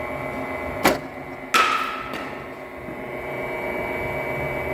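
A sharp crack a little under a second in, then a metal baseball bat striking a pitched ball with a ringing ping about a second and a half in, over a steady hum.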